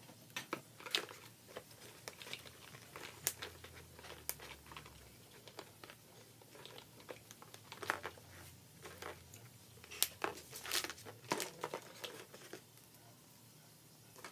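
Hollow plastic Easter eggs clicking and clacking as they are handled, pressed together and set down on a table: irregular light clicks and rustles.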